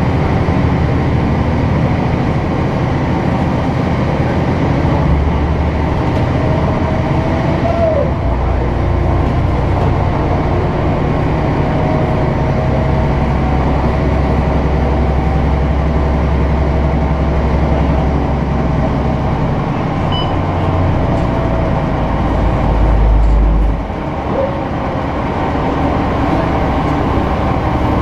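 Inside an articulated city bus under way: the diesel engine and drivetrain run with road and rattle noise. The engine pulls harder from about eight seconds in, is loudest a few seconds before the end, then drops away abruptly.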